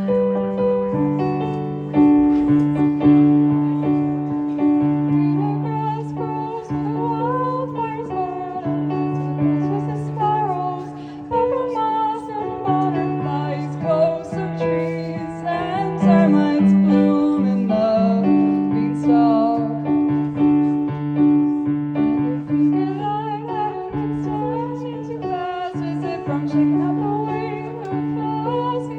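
Piano or keyboard playing sustained low chords, with a singing voice carrying a wavering melody over it.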